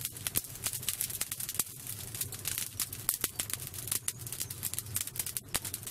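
Wood fire burning in the pit of a tandır oven, crackling with irregular sharp cracks and pops over a steady low hum.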